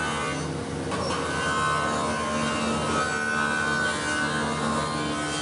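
Heavy overhead swing grinder's abrasive wheel grinding chaplets and leftover gating off a fluted cast iron lamp post shaft, a steady grinding noise over the motor's held whine.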